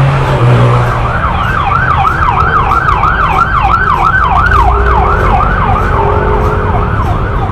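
Emergency vehicle siren in yelp mode, its pitch sweeping up and down rapidly at about two to three cycles a second, over a steady low street rumble; it starts about a second in and weakens near the end.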